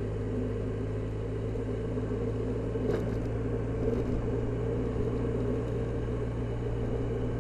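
Motor scooter engine running steadily while riding along a road, with road and wind noise.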